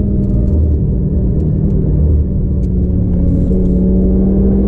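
Stage 2 tuned Audi TT RS's turbocharged five-cylinder engine, heard from inside the cabin, running at steady revs as the car slows from about 145 to 125 km/h.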